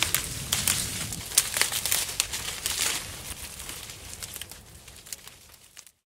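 Vine leaves and Refosco grape bunches rustling and crackling as they are picked by hand, with many sharp snaps and clicks in the first three seconds. The sound then grows fainter and stops just before the end.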